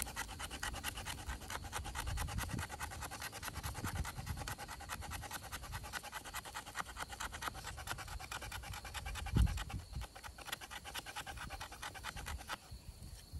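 Knife scraping in rapid short strokes, about seven a second, while preparing tinder for a fire. A dull thump about nine and a half seconds in; the scraping stops shortly before the end.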